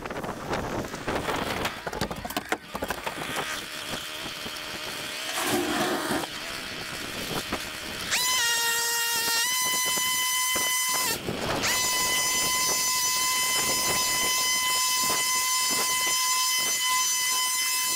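Wind buffeting the microphone along with handling noise. About eight seconds in, a gas leaf blower revs up to full throttle and runs with a steady high whine, cut off briefly a few seconds later.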